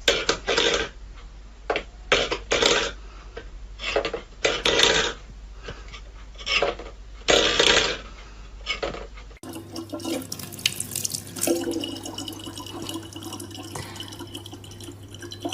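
Water splashing in irregular bursts, then after a cut a tap running steadily.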